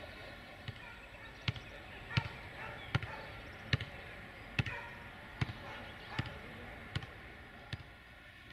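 Footsteps at a steady walking pace: about ten sharp, close steps, roughly one every three-quarters of a second, over a low steady background.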